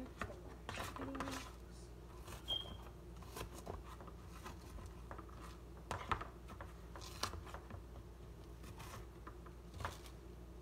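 Kitchen knife chopping onion on a plastic plate: irregular taps and knocks, spaced out, with small scraping and handling noises.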